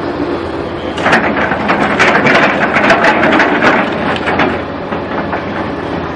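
A vehicle running, with a rapid run of knocks and clatter from about a second in that lasts some three seconds, then dies back to steady running noise.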